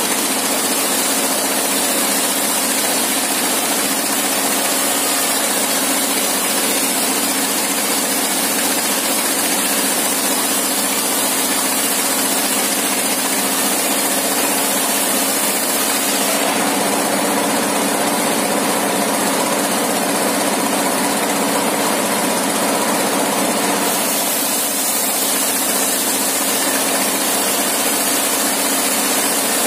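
Engine-driven sawmill with a 60-inch circular blade running steadily while a wooden plank is fed through it, ripping it into thin one-inch boards. The sound changes for several seconds in the middle, then settles back.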